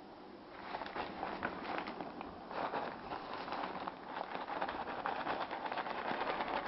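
Crinkling and rustling of cat food packaging being handled, a dense crackly run that starts about half a second in.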